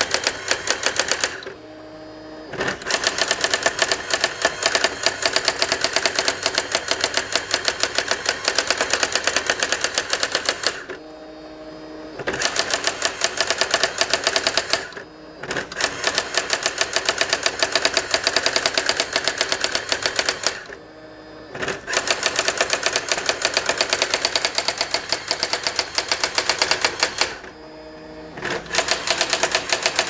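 A 1989 Brother ZX-30 daisy-wheel electronic typewriter printing its auto demo: a rapid, steady rattle of daisy-wheel strikes. It breaks off five times for about a second, with a short steady hum while the carriage returns and the paper feeds to the next line. The machine is printing normally.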